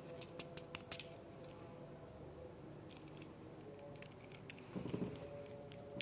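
Light clicks and taps of small hard parts being handled, a quick run of them in the first second and more around three to four seconds in, with a short rustle about five seconds in.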